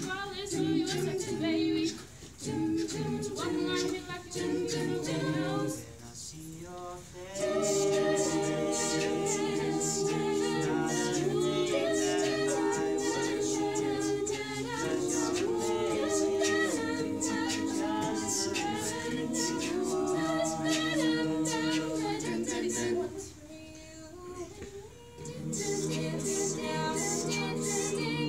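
Mixed-voice student a cappella choir singing in harmony without accompaniment, holding long sustained chords. The singing drops back briefly about six seconds in and again about twenty-three seconds in.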